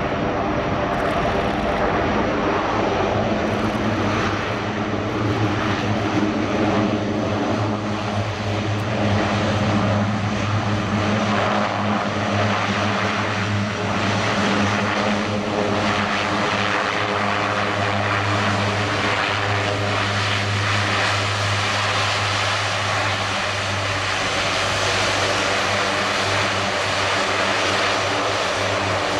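Four Rolls-Royce AE 2100D3 turboprops and six-bladed propellers of a Lockheed Martin C-130J-30 Hercules taxiing on the ground. They make a steady, loud propeller drone with a deep hum.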